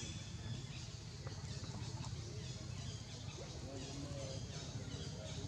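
Outdoor background noise: a steady low rumble, with a few faint short chirping calls in the middle.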